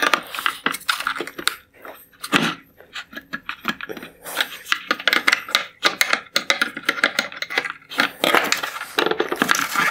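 Long-reach pliers working the plastic mounting tab of a headlight projector bracket loose: a dense, irregular run of clicks, cracks and scrapes of a metal tool on hard plastic.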